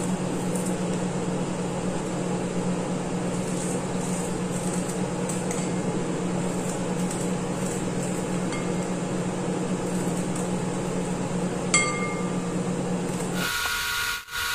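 A steady low electrical hum runs under the apple peeling. About twelve seconds in there is a single glassy clink as a peeled apple is set into a glass bowl. The hum cuts off shortly before the end.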